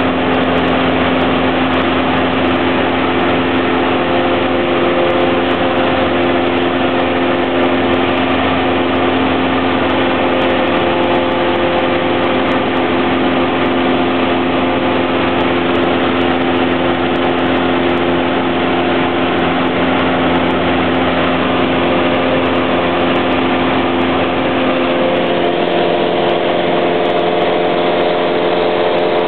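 Cessna 172's piston engine and propeller droning steadily, heard from inside the cabin in flight. Its tone shifts slightly near the end.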